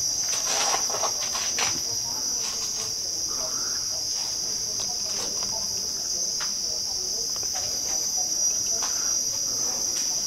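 Steady high-pitched chorus of night insects, with scattered soft knocks and rustles over it.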